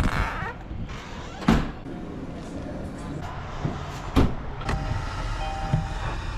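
A car running, with a steady low rumble and several sharp knocks or clunks, the strongest about a second and a half in and just after four seconds. Faint steady tones come in near the end.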